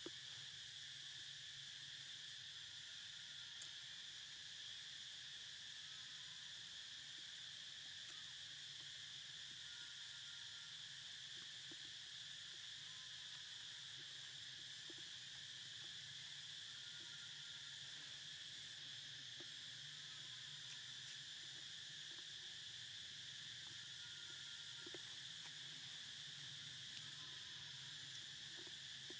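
Faint, steady chorus of insects, a constant high buzz with no breaks, over a low hum.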